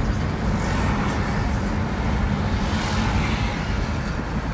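Road noise heard inside a moving car's cabin: a steady rumble of engine and tyres, with brief swells of hiss about a second in and again about three seconds in.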